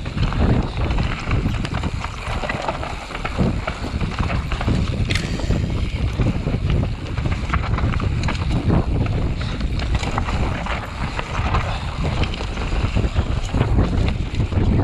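Heavy wind buffeting on the microphone over a constant rough rumble, with many small knocks and rattles throughout. This is the sound of a camera carried at speed over a rough track.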